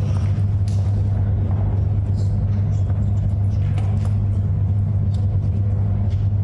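A loud, steady low hum that never changes, with faint scattered knocks and rustles over it.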